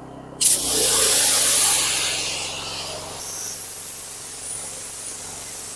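Small Amjet pressure washer spraying water heated to about 65 °C. A steady machine hum is heard, then about half a second in a sudden loud hiss of high-pressure spray starts. After about two seconds the hiss eases to a lower, steady level.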